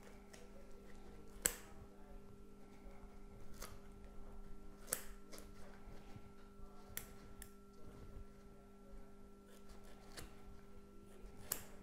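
Small metal scissors snipping through medium-density foam: several short, sharp snips at irregular intervals, the loudest about one and a half seconds in, over a faint steady electrical hum.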